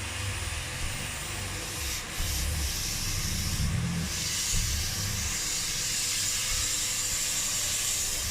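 Hoover H Upright 500 Plus upright vacuum cleaner running, a steady hiss of motor and rushing air with an uneven low rumble underneath.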